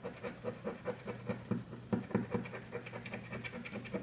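A penny scratching the latex coating off a lottery scratch-off ticket in quick repeated strokes, several a second.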